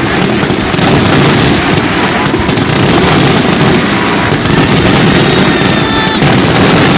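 Firecrackers and fireworks going off in a dense, continuous rapid crackle of overlapping bangs.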